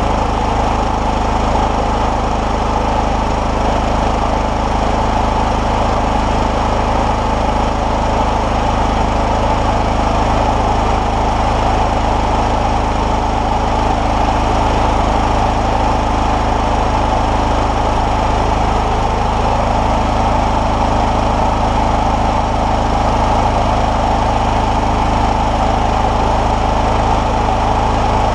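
Clarke FG5100ES petrol generator engine running steadily at a constant speed, now starting and running after its carburettor was repaired.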